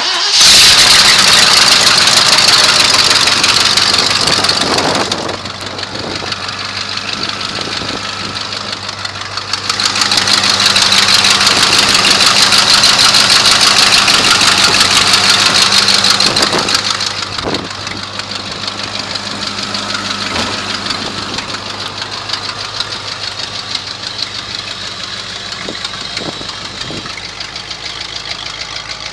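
1975 Ford L-700 grain truck's gasoline engine running at a steady idle just after starting. It is louder for the first few seconds and again from about ten to seventeen seconds in.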